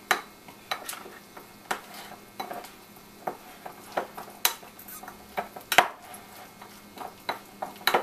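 A spoon stirring a thick spiced butter paste in a ceramic bowl, giving irregular clinks and knocks against the bowl, a few a second.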